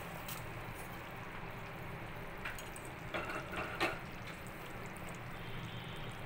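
Hot mustard-seed and curry-leaf tempering poured into a pot of simmering bitter gourd curry. The thick curry bubbles steadily, with a few short pops in the middle.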